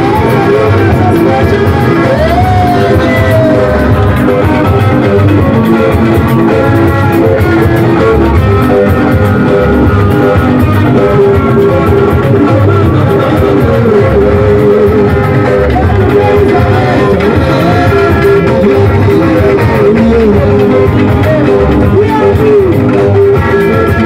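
Live band music with an electric guitar playing over the band, loud and continuous.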